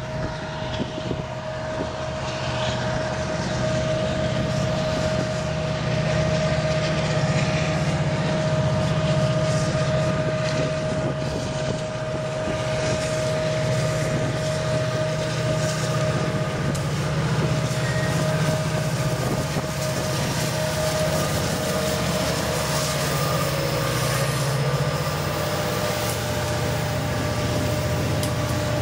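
Union Pacific freight train's diesel locomotives approaching and passing, their engine rumble growing louder over the first few seconds and then holding steady. A steady high whine runs throughout.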